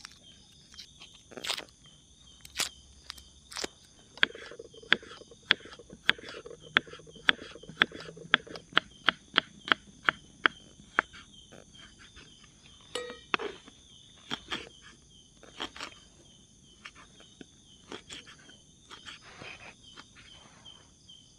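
Small knife chopping shallots on a wooden cutting board: a run of sharp taps, about three a second through the middle, with scattered taps before and after. A steady high chorus of night insects runs underneath.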